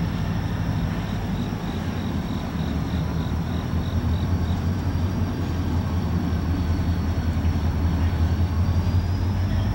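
Diesel engines of an approaching freight train's two EMD Geep road-switcher locomotives, a deep steady drone that grows louder toward the end. A faint high ticking, about three a second, runs through the first half.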